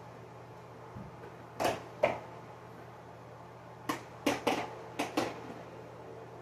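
Plastic clicks and knocks from handling the hose and parts of a Bissell PowerForce bagless vacuum cleaner: two about a second and a half in, then a quick run of five about four to five seconds in. A faint low hum runs underneath.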